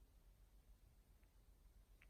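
Near silence: faint room tone with one small click about a second in.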